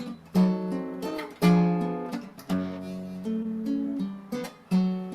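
Acoustic guitar strummed in a slow, even rhythm, about one chord a second: the introduction before a song begins.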